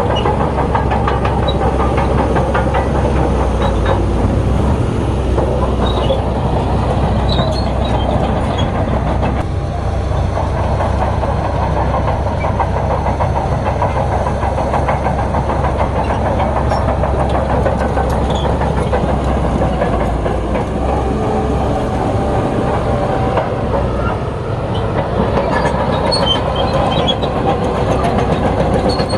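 Bulldozer's diesel engine running steadily under load, with a dense clatter from its steel tracks.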